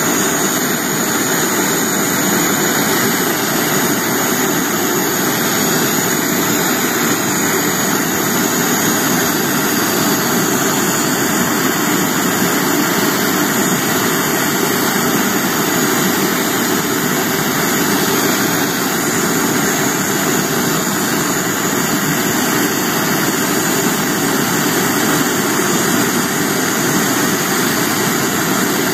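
Gas brazing torch flame giving a steady hiss while it heats a copper-to-iron pipe joint and the brazing rod is melted in.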